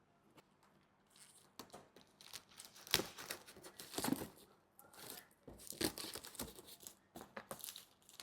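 Packaging of a Tamiya 4WD car kit being torn open and crinkled: irregular rustling and ripping, with a sharp tear about three seconds in.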